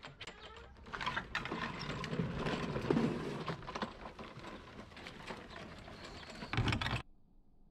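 Gas walk-behind lawn mower with its engine off being pushed over pavement and into grass: its wheels and frame rattle and click steadily. The sound cuts off suddenly near the end.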